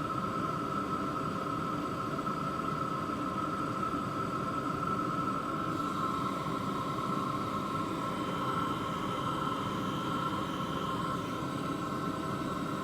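BougeRV 5 kW diesel heater running steadily, a blower fan whine over a rushing combustion and airflow noise. The whine shifts slightly in pitch about halfway through and again near the end as the heater is turned down from its highest setting toward medium.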